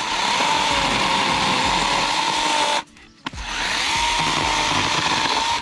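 Parkside 20 V cordless chainsaw running flat out with a steady high whine; it stops about three seconds in and starts again half a second later, spinning back up to speed.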